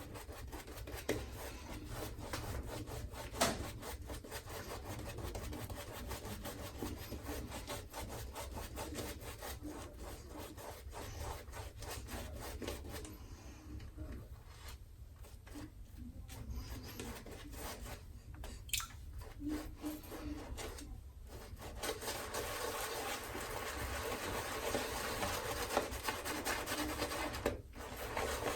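Shaving brush being worked through soap lather, a continuous scratchy rubbing and swirling that eases off a couple of times and grows louder over the last several seconds.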